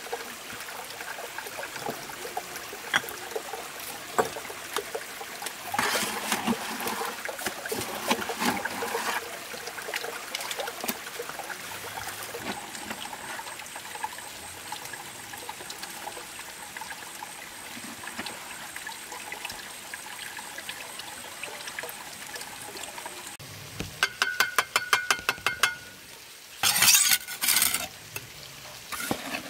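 Bricklaying with a steel trowel: mortar scraped and spread, and bricks knocked into place, giving scattered clicks and scrapes, then a quick run of ringing taps and a few loud scrapes near the end. Water trickles steadily underneath.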